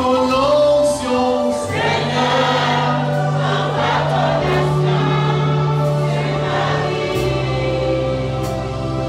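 Gospel worship song: a man singing into a microphone, joined by a choir, over long held bass notes and chords that change about two seconds in and again about seven seconds in.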